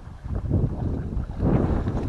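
Wind buffeting the microphone: a low, uneven rumble that swells and dips.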